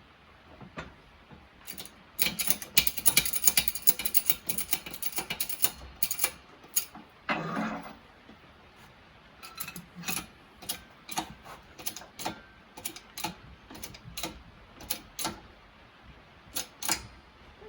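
Mechanical clicking from a shop press being worked to press a water pump mechanical seal into an engine case: a quick run of rapid clicks, then single clicks about twice a second.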